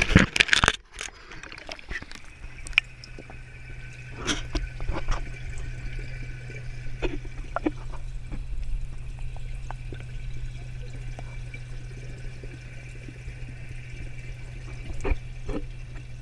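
A camera plunging into pond water with a splash and gurgle in the first second, then the sound underwater: a steady low hum with scattered small clicks and knocks.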